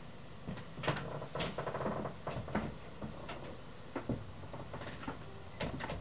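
A few light knocks and clicks, spaced about a second apart, as a varnished wooden cabin door is handled and swung open in a small room.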